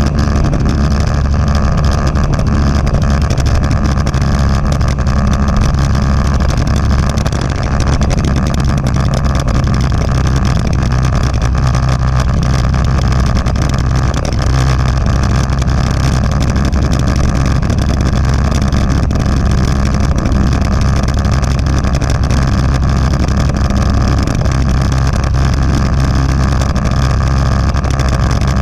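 Motorcycle engine running steadily at cruising speed on a gravel road, its low drone unbroken, with wind and road rush over it.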